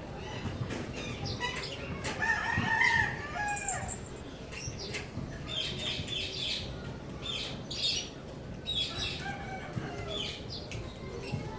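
Indian ringneck parrot chattering in bursts of short chirps and warbles, with small clicks and rustles between them.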